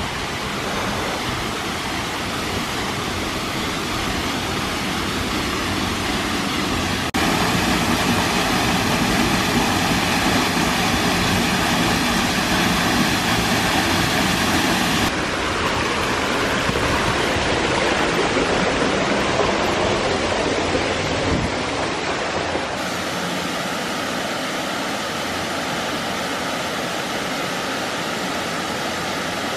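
Waterfalls rushing: a steady, dense noise of falling water splashing into pools. It changes suddenly in loudness and tone three times as the scene moves from one fall to another, and it is loudest in the second stretch.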